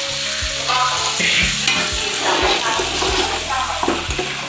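Tomato-spice masala sizzling in a large aluminium pot as raw chicken pieces are tipped in and stirred through it, with a few soft knocks from the handling.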